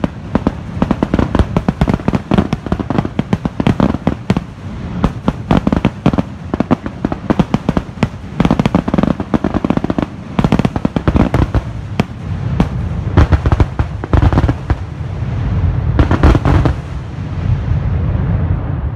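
Fireworks finale barrage: aerial shells bursting in rapid, overlapping bangs, one after another, merging into a steady low rumble over the last few seconds.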